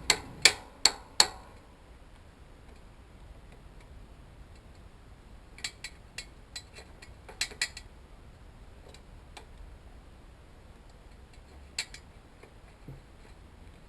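Sharp metallic clicks of channel-lock pliers working on a bicycle's bearing cup: four loud clicks in quick succession, then a cluster of lighter ticks about six seconds in and one more near the end.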